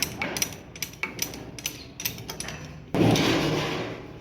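Metal clicks and knocks of hand tools working on a steering rack assembly, then a louder rasping noise starting suddenly about three seconds in and fading over about a second.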